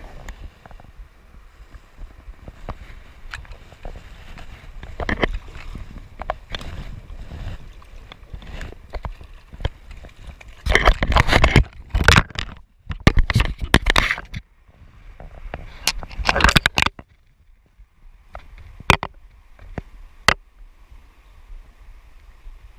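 Metal forceps bouncing against a GoPro's plastic housing: scattered sharp clicks, with several louder knocking and scraping bursts in the middle, over the faint rush of a riffled stream.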